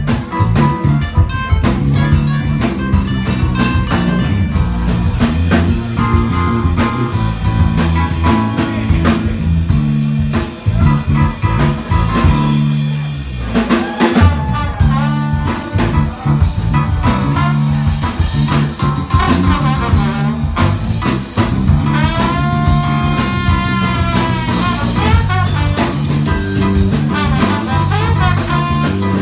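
A live jazz band playing, with electric bass, drum kit and keyboard. About halfway in a trombone comes in over them, playing a line of sliding, bending notes.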